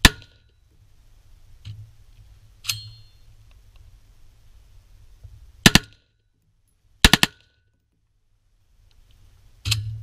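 AR-style rifle shots: a shot at the start, a fainter one, and one followed by a short metallic ring within the next three seconds. Then come a quick pair, a rapid string of three (the loudest), and a last shot near the end.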